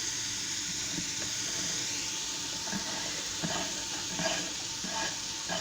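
Chopped onion frying in olive oil in a hot pan: a steady sizzle, with a few light knocks of a stirring utensil against the pan in the second half.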